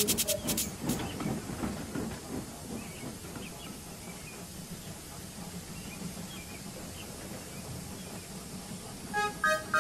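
Steady hiss of steam from a standing steam locomotive. Music with sharp clicks fades out in the first second, and music comes back in near the end.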